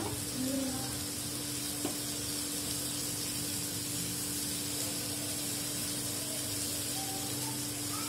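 Prawns sizzling in hot oil in a flat pan, a steady frying hiss, as they are stirred and turned with a spatula, with one light tap about two seconds in. A steady low hum runs underneath.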